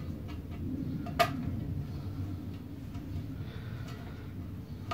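A sharp click about a second in, a plastic wheel-liner grommet being pushed into a square hole filed in a sheet-steel panel. A few fainter clicks and a steady low hum lie under it.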